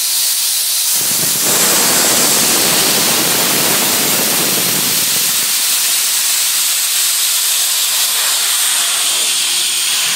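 Loud steady hiss of rushing air at the brass fittings of a solar water heater's stainless pressure tank, rougher and fuller from about one to five and a half seconds in.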